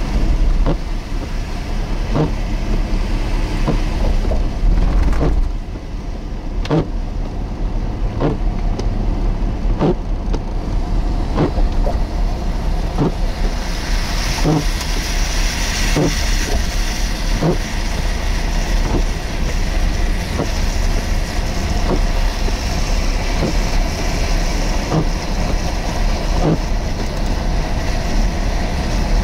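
Steady low rumble of motor-vehicle noise, with light, sharp ticks a little more than once a second. A hiss builds up from about halfway through.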